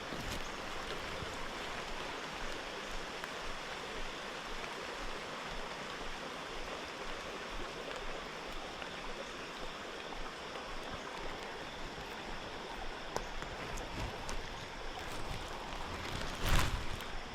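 Steady rain falling, an even hiss, with a brief louder rustle or bump about a second before the end.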